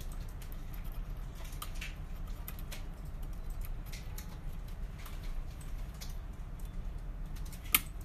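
Light, scattered ticks and clicks of an AKK KW5 2-in-1 pick working the pin stacks inside a Kwikset lock cylinder, with one sharper click near the end, over a steady low hum.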